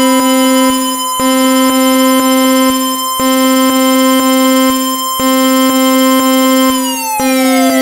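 Synthesized emergency-alert tone: a loud, buzzy held chord that breaks briefly about every two seconds. Near the end, one pitch starts sliding steadily downward.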